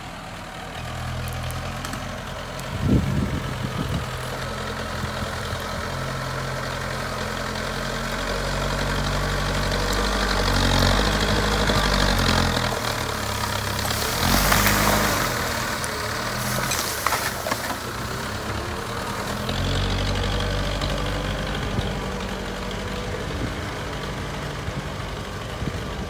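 JCB backhoe loader's diesel engine working, its revs rising and falling as the front loader bucket pushes earth and debris. A sharp knock about three seconds in, and bursts of scraping and crunching around the middle as the loaded bucket shoves a pile of rubbish.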